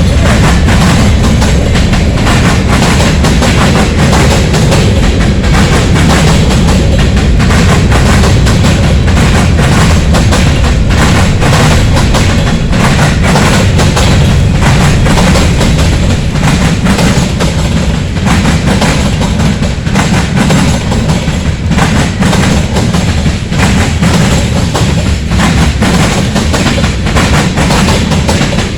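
Music with a beat, mixed with the low rumble and rail clatter of a passing CSX freight train; the train noise grows more prominent in the latter half.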